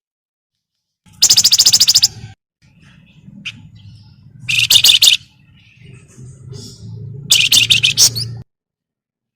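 Javan fulvetta (wergan Jawa, 'flamboyan') giving its rapid chattering 'crecet' call in three bursts, each about a second long, of fast, high, repeated notes.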